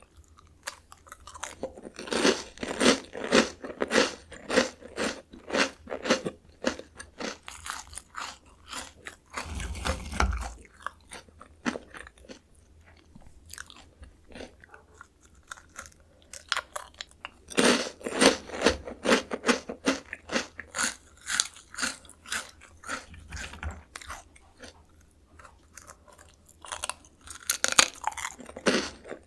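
Close-up crunching and chewing of Jagalchi seafood-flavoured crackers. Runs of rapid, crisp crunches come three times, with quieter chewing between them.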